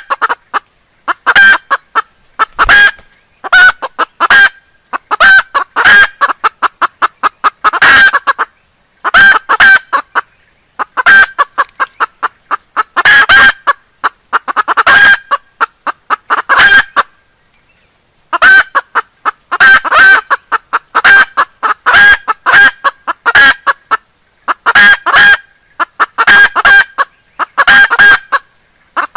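Chicken hen calling loudly in quick runs of clucks, one run after another, with a break of about two seconds around the middle.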